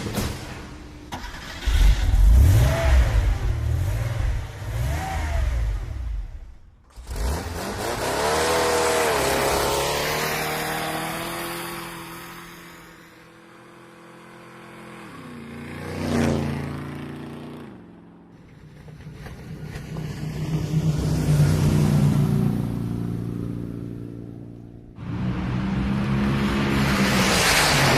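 Car engines revving and passing by, their pitch rising and falling as each swells and fades. About sixteen seconds in there is a sharp drop in pitch as one goes past close, and the sound changes abruptly about seven and twenty-five seconds in.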